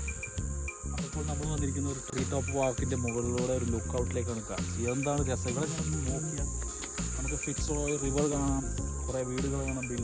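Steady high-pitched insect chorus, with background music carrying a wavering melody line over a low bass.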